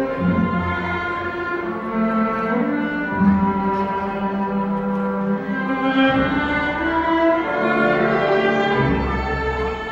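Orchestral music with bowed strings, cello and violin, playing sustained notes that change every second or so.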